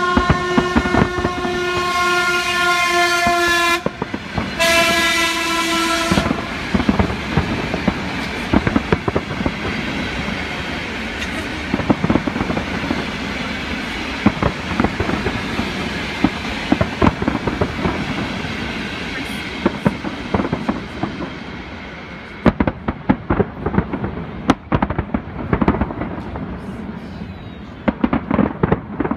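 Fireworks going off in a steady run of bangs and crackle, with sharper separate booms in the last several seconds. Over the start a single-pitched horn sounds twice: a long blast that stops about four seconds in, then a shorter one.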